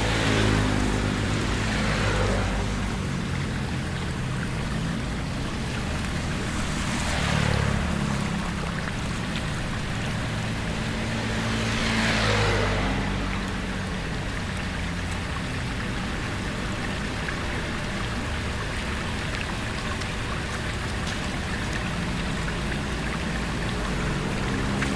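Vehicle engines running on a flooded road amid the rush of water, with three passing swishes of tyres ploughing through floodwater, near the start, about 7 seconds in and about 12 seconds in.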